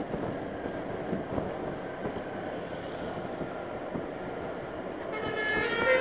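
Steady wind and road noise from a moving motorcycle. About five seconds in, a double-decker bus's telolet horn starts up with several horn tones sounding together.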